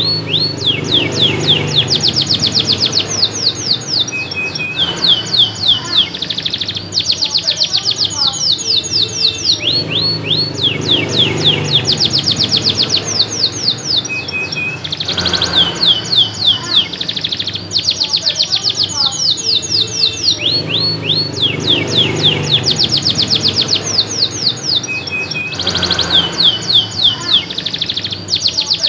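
Red canary singing loudly and without pause: fast rattling trills and quick runs of high sweeping notes, the same sequence of phrases coming round again about every ten seconds.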